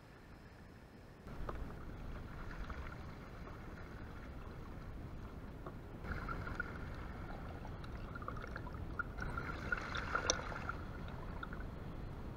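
Mountain bike tyres splashing and churning through a shallow running stream, a steady rushing wash of water with bursts of spray. It gets louder about a second in and again around the middle, with the busiest splashing near the end.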